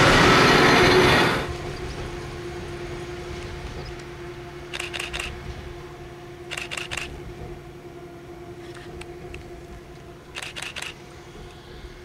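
Diesel railcar running close by, loud for about the first second before cutting off suddenly. Then it is heard further off and fading as it pulls away: a steady engine hum, with four short clatters of quick clicks as its wheels cross rail joints.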